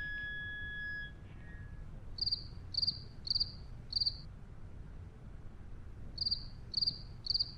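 Cricket chirping used as a comic 'crickets' sound effect: short high chirps about half a second apart, in a run of four, a pause of about two seconds, then another run. A faint high ringing tone fades out in the first second or two, and a low steady hum runs underneath.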